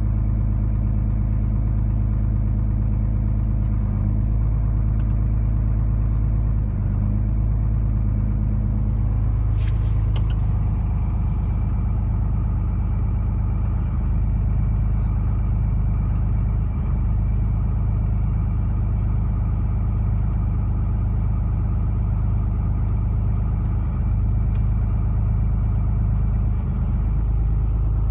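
A 2004 Dodge Ram's 5.9 Cummins inline-six turbodiesel idling steadily while still cold, just after a start at about 4°F with no block heater, heard from inside the cab. About ten seconds in there is a click and the idle note changes slightly.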